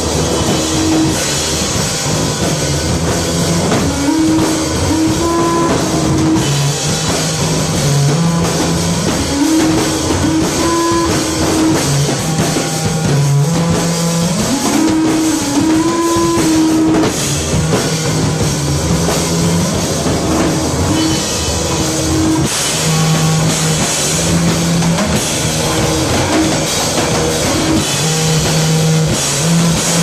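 Loud live rock band, drum kit with a constant cymbal wash and guitar, playing a repeating riff without a break.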